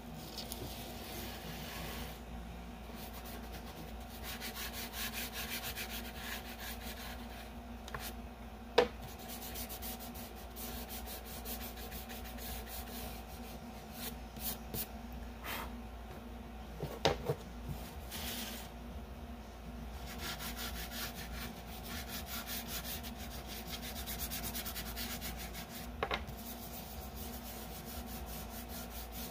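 Chalk pastel being rubbed and blended into paper in quick, continuous back-and-forth strokes, with a few sharp knocks, the loudest about nine seconds in.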